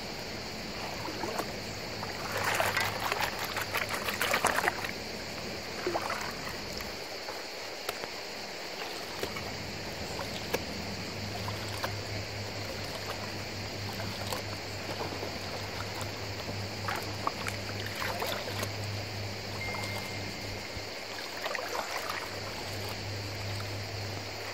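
Shallow river water sloshing and splashing as gravel is scooped and worked in plastic gold pans, with rattling clicks of stones, the busiest stretch about two to five seconds in. A steady low hum runs underneath.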